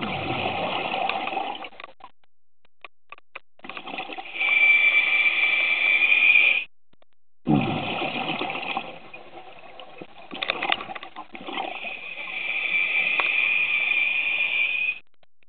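A scuba diver breathing on a regulator underwater, two full breaths: exhaled bubbles gurgle out at the start and again about halfway, each followed by a long hissing inhalation through the regulator with a high whistle-like tone.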